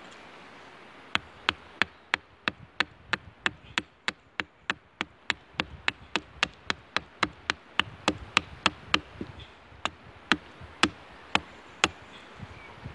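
Hultafors Classic Trekking hatchet chopping a wooden spoon blank on a log, roughing out the spoon's shape. The strokes are a steady run of short, sharp strikes, about three a second, starting about a second in, with a brief pause about two-thirds of the way through.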